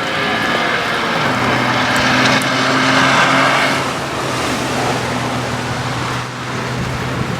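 Citroën C1 race car engine running at steady revs, with a hiss that swells and fades over the first four seconds.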